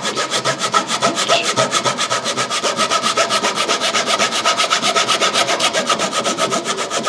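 Hand saw cutting into a cricket ball's genuine leather cover, steady rapid back-and-forth strokes throughout.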